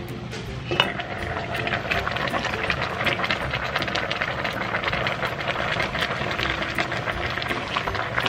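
A giant stockpot of seafood boil water boiling, a steady bubbling with many small pops, and one sharp knock about a second in.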